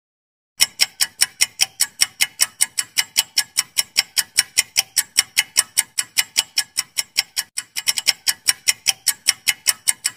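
Clock-ticking sound effect for a quiz countdown timer: sharp, bright ticks at about five a second, starting about half a second in, with a brief hitch in the rhythm about three-quarters of the way through.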